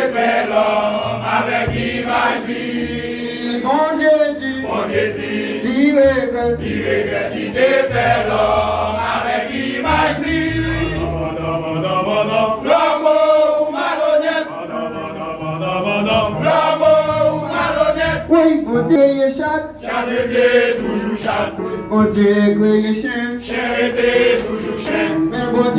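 Male gospel vocal group singing together in harmony.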